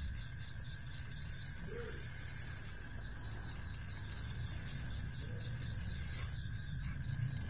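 Crickets chirping in a steady night-time chorus, with a low rumble underneath that grows a little louder near the end.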